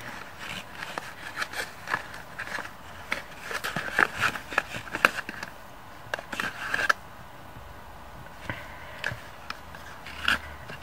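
A small cardboard box of washi tape rolls being handled and opened by hand: cardboard scraping and rubbing with scattered light clicks and taps, busiest in the first seven seconds and sparser after.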